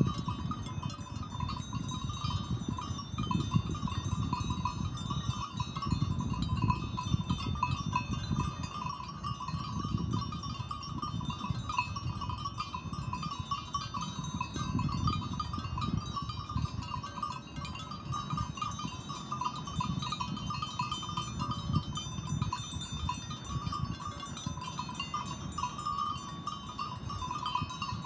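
Outdoor sound of a flock of sheep grazing in a field. Steady, high, thin ringing tones sit over a low rumble that rises and falls throughout.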